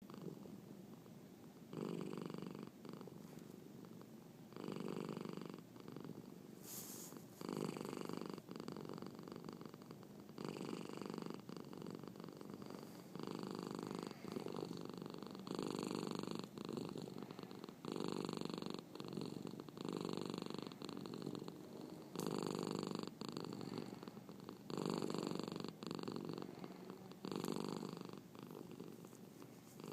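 Domestic cat purring loudly and steadily, swelling and easing with each breath about every two and a half to three seconds. One brief sharp click comes about seven seconds in.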